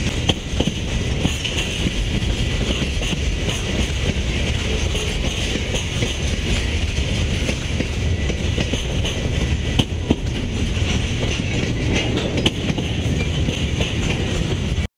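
Freight cars of a long train rolling past on steel rails: a steady rumble and hiss of wheels on track, with occasional faint clicks. The sound cuts off abruptly at the very end.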